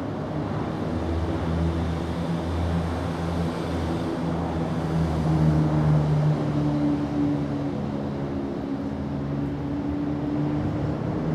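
Steady low engine drone from a motor out of sight, its pitch shifting slightly about halfway through.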